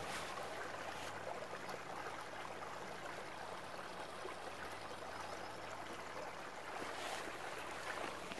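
Steady rush of running water from a stream.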